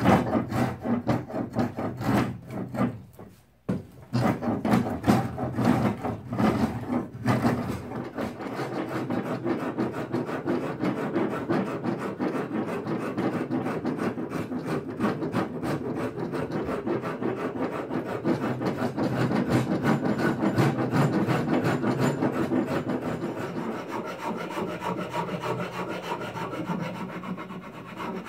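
Hand rasp stroking rapidly back and forth across a hardwood axe handle, shaping it down. There is a short pause about three and a half seconds in, then steady continuous rasping.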